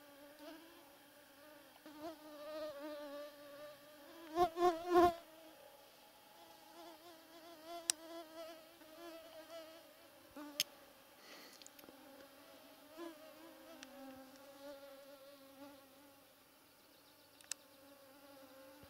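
Mosquitoes whining around the microphone: a thin, steady hum that wavers in pitch, swelling loudest about four to five seconds in as one flies close. A few sharp ticks are heard along the way.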